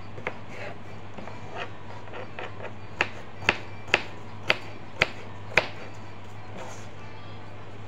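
Knife chopping bell pepper on a cutting board: a few light taps, then six sharp chops at about two a second, over a steady low hum.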